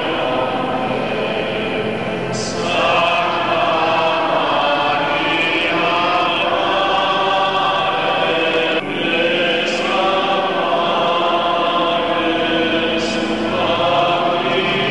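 Male choir singing in long held phrases, with short breaks between phrases about two and a half and nine seconds in.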